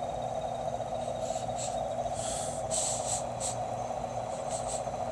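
A steady, unbroken drone of unknown origin, sounding like a helicopter idling behind buildings or a jackhammer running on and on. A few brief hissing sounds come over it, mostly between one and three and a half seconds in.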